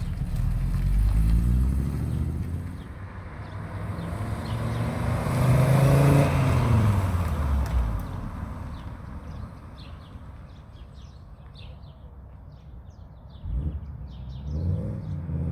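1984 Audi 4000S Quattro's five-cylinder engine under way, rising in pitch and loudness to a peak about six seconds in, then falling away to a quieter stretch. Near the end there is a single knock, and then the engine climbs in pitch again.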